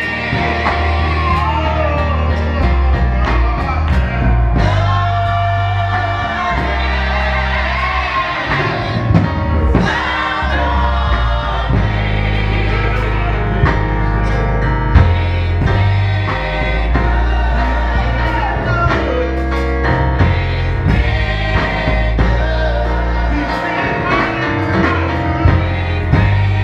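Live gospel music: a choir singing over piano accompaniment with deep, sustained bass notes.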